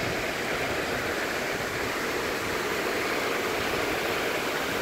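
Heavy rainstorm: a steady rush of downpour driven by strong wind.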